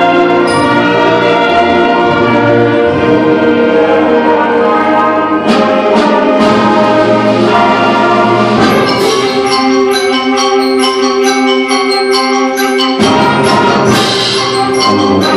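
Junior high school concert band playing, woodwinds and brass in sustained chords that turn to a quicker passage of short, repeated notes about halfway through.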